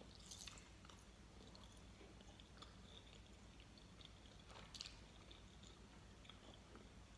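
Faint mouth sounds of someone chewing a soft, chewy marshmallow-and-gummy-fish candy: quiet wet smacks and small sticky clicks, the most distinct just after the start and about five seconds in.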